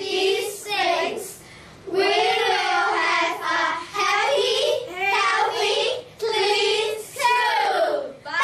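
A group of young children singing together, with a short break about a second in.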